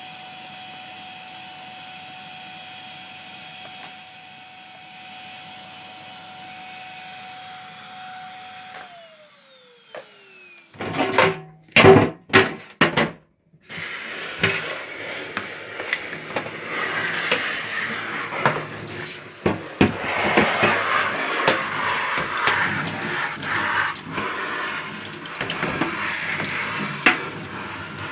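A vacuum cleaner running steadily with a whine, switched off about nine seconds in, its pitch falling as the motor spins down. A few loud knocks follow, then a tap running into a sink with things clattering in the water.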